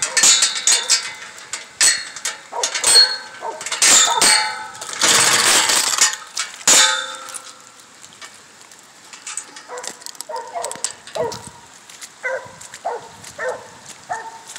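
Sharp metallic clanks and clinks through the first half, then an Original Mountain Cur barking treed at a distance, short barks about twice a second.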